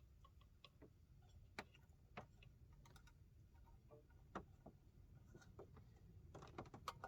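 Faint, irregular small clicks and ticks, one or two a second, over a low steady hum, coming thicker near the end.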